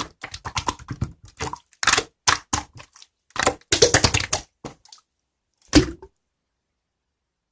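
Slime being squeezed and pressed by hand: irregular runs of sticky clicking and popping, which stop about six seconds in.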